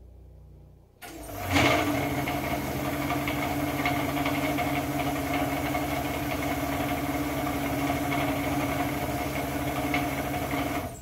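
Electric motor switched on to belt-drive a twin-cylinder air compressor pump: a sudden start about a second in, then a steady hum with a fine rattle, cut off near the end. The motor is struggling to turn the pump over, which the owner puts down to too little belt tension or to the generator not making enough power.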